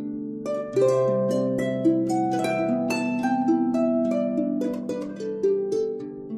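Background music: harp playing a melody of plucked notes over a held low note.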